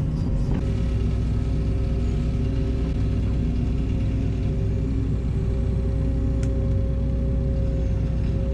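Heavy equipment diesel engine running steadily with a deep rumble.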